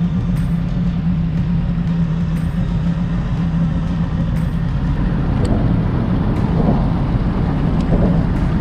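Boat motor running steadily with the boat under way: a constant low drone under a rush of wind and water noise.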